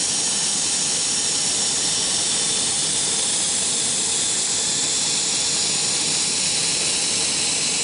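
Steady, even high hiss of running machinery on a CNC router.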